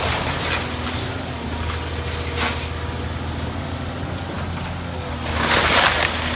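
Volvo EC240CL tracked excavator's diesel engine running under load with a steady hum, while the house it is pulling down breaks up in short crashes of splintering debris, the loudest and longest about five and a half seconds in.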